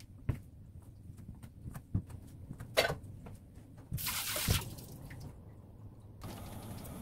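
Knife cutting ham into strips on a plastic cutting board: a few separate taps of the blade on the board, then a short burst of hissy noise about four seconds in.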